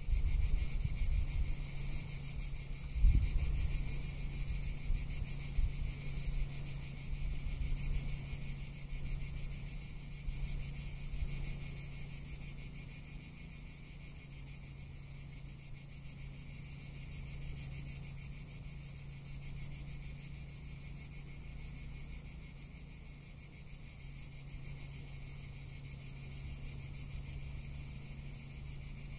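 Cicadas singing: a steady, high, continuous buzz with a fine rapid pulse. Gusts of wind rumble on the microphone through the first half, strongest about three seconds in.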